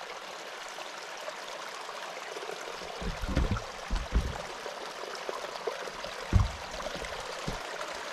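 Water gushing out in a steady rushing stream, with a few low thumps about three to four seconds in and another near six and a half seconds.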